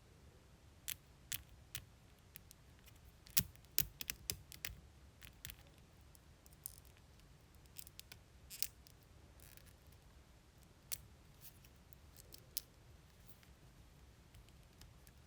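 Irregular sharp clicks and snips from small nail tools being handled, in a loose cluster about three to five seconds in and scattered singly after that, over a faint low hum.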